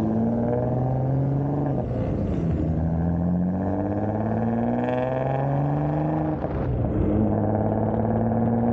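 Single-turbo Audi B5 S4's 2.7-litre V6 accelerating through the gears, its note rising steadily in pitch and dropping at upshifts about two seconds in and again about six and a half seconds in.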